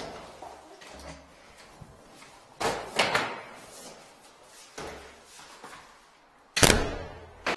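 Door and tool-case knocks: two sharp clunks a few seconds in, then a door shutting with a loud bang near the end.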